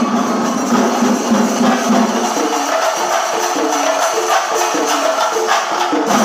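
Chenda melam: Kerala chenda drums of a percussion ensemble playing a fast, dense, driving beat.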